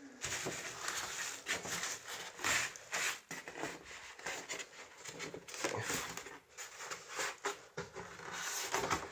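Cardboard box and plastic wrapping being handled during an unboxing: a run of irregular rustles, crackles and scrapes.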